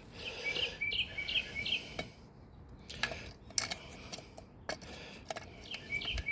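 A small bird singing a quick run of short, repeated chirps over the first couple of seconds, with more chirps near the end. A few sharp clicks sound in between.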